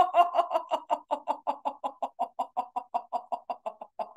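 A woman laughing on the vowel O as a laughter-yoga exercise: a rapid, even run of short "ho-ho-ho" pulses, about six a second, growing fainter toward the end.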